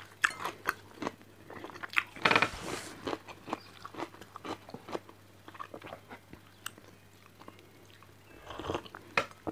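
A person eating close to a clip-on microphone: chewing and mouth noises with many small scattered clicks, and one louder mouth sound about two seconds in. Near the end comes a sip of coffee from a mug.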